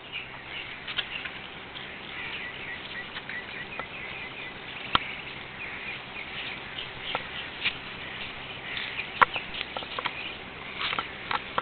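Birds chirping in scattered short calls over a steady outdoor background, with two sharp clicks, about five and nine seconds in.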